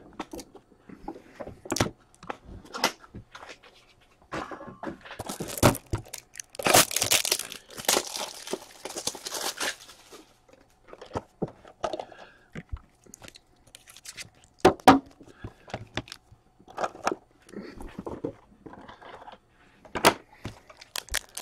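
Trading cards and their foil pack wrappers being handled. A stretch of crinkling and tearing runs from about five to ten seconds in, with scattered clicks and taps of cards and rigid plastic top loaders being set down throughout.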